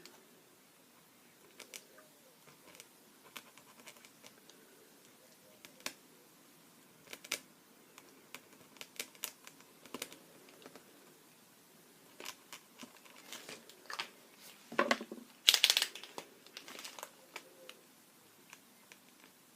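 Scattered light taps and scratches of hand work with art materials on paper, with a louder rustle and clatter about fifteen seconds in.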